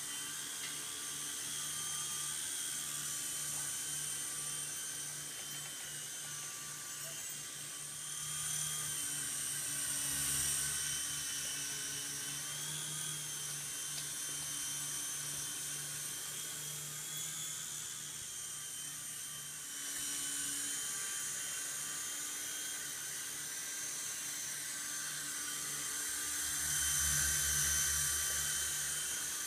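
Traxxas DR-1 coaxial RC helicopter in flight: a steady high whine from its small electric motors and twin rotors, rising and falling slightly in pitch. It grows louder about ten seconds in and again near the end.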